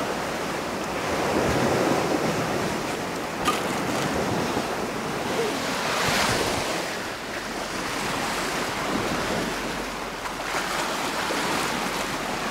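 Small sea waves washing onto a rocky shore, coming in slow surges every few seconds, with wind on the microphone.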